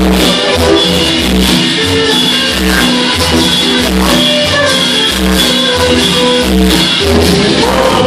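Loud cumbia music played over a sound system, with a steady bass beat about every half second or so.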